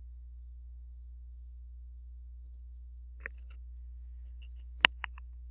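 A few sharp computer mouse clicks over a steady low hum, scattered from about halfway in; the loudest click comes near the end, followed closely by two smaller ones.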